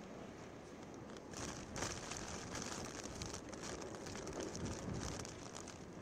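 Cyclone wind and heavy rain: a steady rushing hiss with a dense, crackly patter of raindrops, growing louder about a second in.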